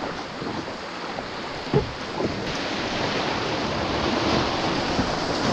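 Steady rush of whitewater river current washing around a canoe, slowly growing louder, with one short knock or splash about two seconds in.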